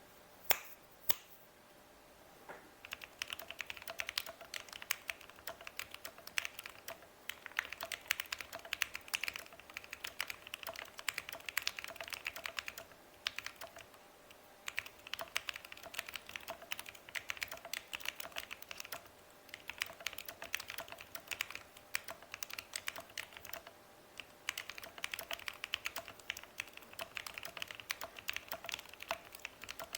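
Typing on a Monsgeek M1 mechanical keyboard fitted with Gateron Black Ink V2 linear switches, stock stabilisers and cherry-profile Seal keycaps. Two sharp clicks come first, then runs of fast keystrokes broken by short pauses every few seconds.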